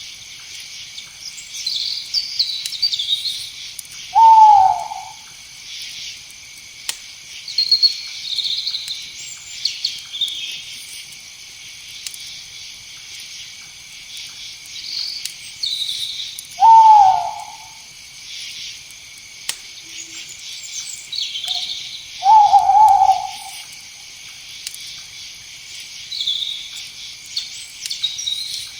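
Night insects trill steadily while a night bird gives three short, loud calls about four, seventeen and twenty-two seconds in, each a single note that rises and then falls.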